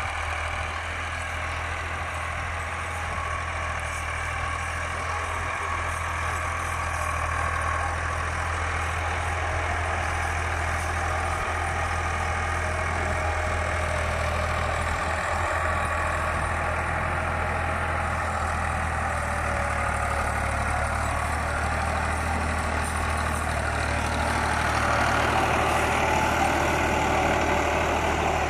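Ford farm tractor's diesel engine running steadily under load as it pulls a spring-tine cultivator through dry soil. It grows slightly louder near the end.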